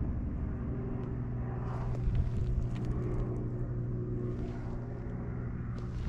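A steady low engine drone with an even hum, such as an idling rail vehicle or machine, with a few soft crunches of footsteps on gravel track ballast.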